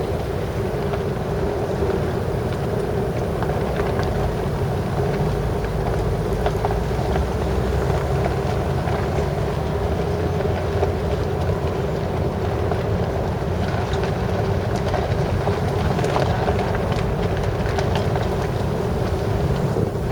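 Blizzard wind buffeting the microphone in a steady, rumbling roar, with a constant hum underneath.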